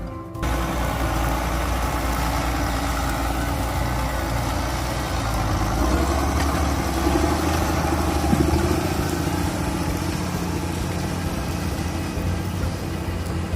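A tractor engine running steadily at a ploughing match. Its low hum shifts and grows a little louder about six seconds in.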